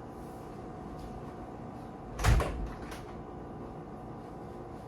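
A door shutting with a thud a little over two seconds in, followed by a lighter knock about half a second later.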